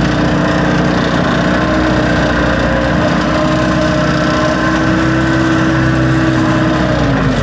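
Backhoe engine running steadily at raised revs, its pitch dropping as it throttles down just before the end.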